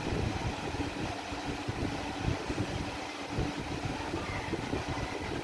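Steady low background rumble and noise with a faint steady hum, no distinct events.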